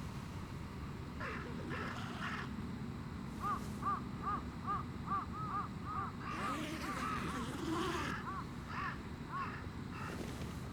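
Bird calls: a few harsher calls, then a long run of short, clear, repeated notes, about three a second.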